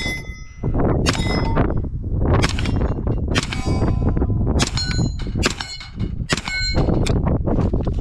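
Freedom Ordnance FX-9 9mm carbine firing a string of a dozen or so shots at an uneven pace, about one or two a second, many followed by the ring of struck steel targets. The shooting stops near the end.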